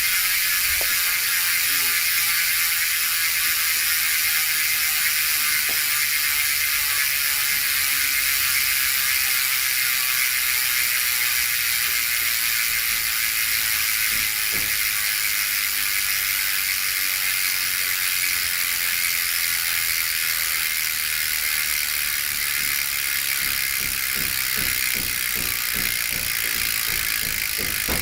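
Koozer XM490 Pro bicycle hub's six-pawl freehub clicking so fast that it blurs into a steady, loud buzz as the wheel spins freely, gradually slowing down.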